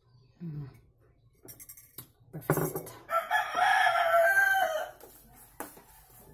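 A rooster crows once, about halfway through: one long call of roughly two seconds, loud over the quiet room.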